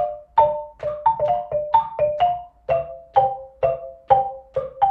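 Wooden xylophone struck with two mallets, playing a simple tune in a steady beat of about two notes a second, with a few quick pairs. Each note is short and dry, dying away quickly.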